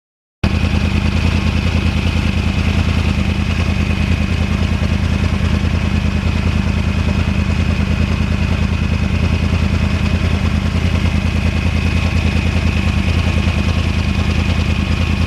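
2009 Yamaha R1's crossplane inline-four engine running at a steady, unchanging speed, cutting in abruptly about half a second in, with a thin steady whine above it.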